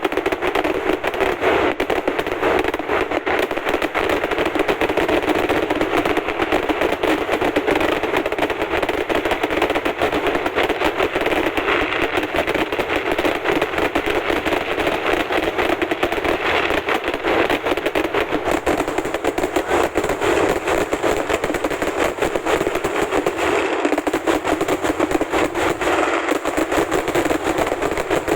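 Vedikettu, Kerala temple fireworks: a dense, unbroken barrage of firecracker explosions, many blasts a second with no pause.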